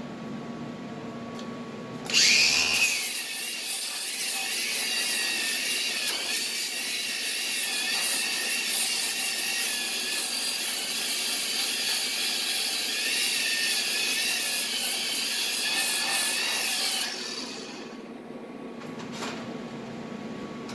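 Angle grinder starting up about two seconds in and grinding with a steady high whine for about fifteen seconds, then switched off and winding down.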